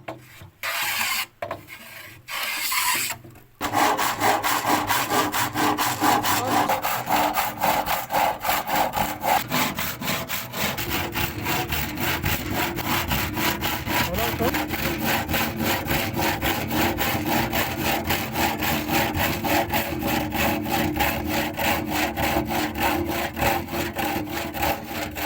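A saw cutting through wood. A few short strokes at first, then a long run of quick, even strokes from about three and a half seconds in.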